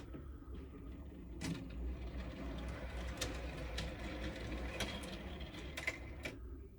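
Raex MD360 motorised curtain track running under remote control: the motor hums as it drives the curtain, with a few light clicks. It gets a little louder as it speeds up, then eases off and stops near the end, its soft-start and soft-stop action.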